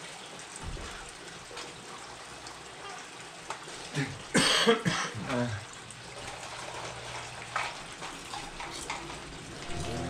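A man coughing and clearing his throat in a harsh burst about four seconds in, a reaction to the chili heat of the super-hot popcorn he is eating.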